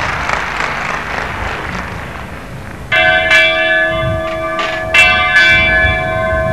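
Marching band percussion bells: after a soft stretch of band sound, a ringing bell chord is struck about three seconds in and struck again about two seconds later, each with a sharp hit, the tones ringing on.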